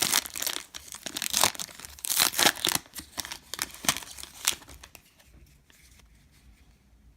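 Plastic trading card pack wrapper being torn open and crinkled, with dense irregular crackling for about five seconds, then it goes quiet.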